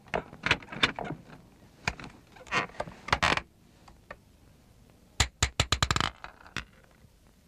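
Scattered sharp clicks, taps and short scrapes, then a quick rattling run of about ten clicks a little after five seconds in.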